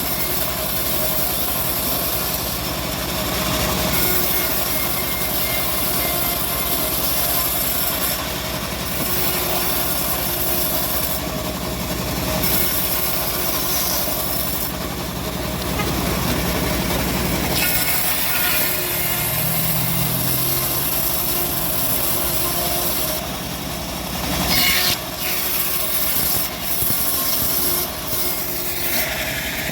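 Homemade engine-driven bandsaw running steadily while ripping an old teak log, the blade cutting through the wood over the engine's hum. The engine's low note shifts about two-thirds of the way through.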